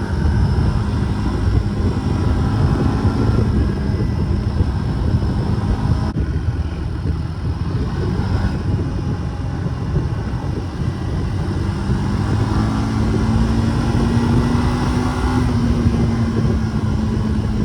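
Four-wheeler (ATV) engine running steadily while riding, with wind buffeting the microphone. About three-quarters of the way through the engine pitch climbs, then eases back near the end.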